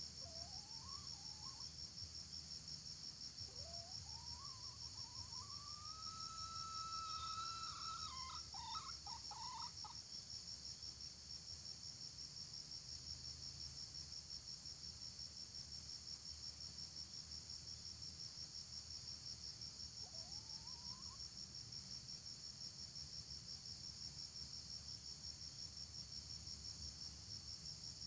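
A red junglefowl rooster crowing over a steady high insect drone: a short rising call at the start, then a long drawn-out crow that rises, holds its pitch and breaks up at the end about eight to ten seconds in, and another short rising call about twenty seconds in.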